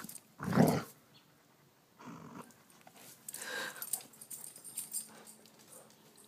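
Bearded collie gives one short, low growl with a toy in its mouth, a little under a second in. Fainter scuffling noises follow.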